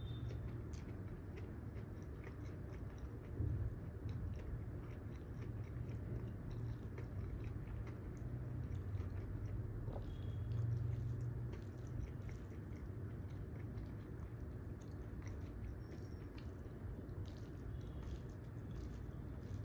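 Close-miked chewing and biting of a person eating a meal, with many small wet mouth clicks over a steady low hum.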